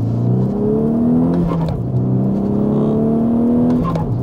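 The turbocharged 2.0-litre four-cylinder of a tuned Golf 6R, with aftermarket downpipe and exhaust, accelerating hard through the gears of its manual gearbox. The engine pulls up in pitch, drops with an upshift about a second and a half in, pulls up again, and drops with another upshift near the end.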